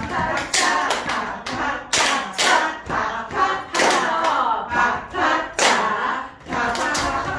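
Body percussion: rhythmic hand claps and slaps on the body, about two a second, in time with a voice singing a song.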